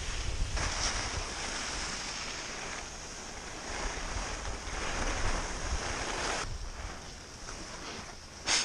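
Wind rushing over a helmet-mounted camera's microphone while skiing downhill, with the hiss of edges scraping over packed snow. The noise swells for most of the run, eases off, and a short loud hiss comes near the end.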